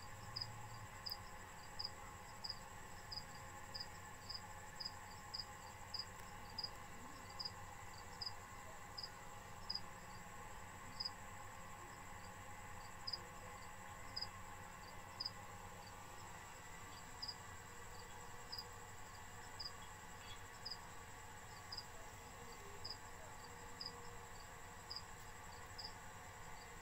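A cricket chirping steadily, short high chirps at about two a second.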